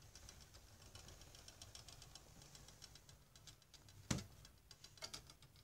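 Faint, scattered clicks and light rustling of handling noise, with one sharp knock about four seconds in.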